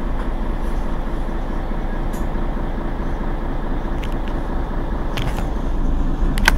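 Mercedes-Benz Citaro G C2 Euro 5 articulated diesel bus running, a steady low engine and road rumble, with a few light clicks or rattles in the second half.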